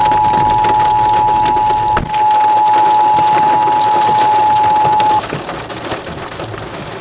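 Emergency Alert System two-tone attention signal playing from a radio, signalling a coming weather warning. About two seconds in it changes to a single steady tone, which cuts off suddenly about five seconds in, leaving rain patter on the vehicle.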